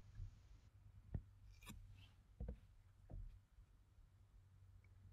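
Near silence with a few faint, separate computer mouse clicks.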